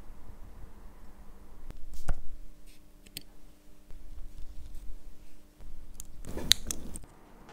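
Small clicks and taps of watchmaker's tools against a watch, then near the end a crinkle of thin plastic with one sharp click, as hand levers lift the hands off the dial through a protective plastic sheet.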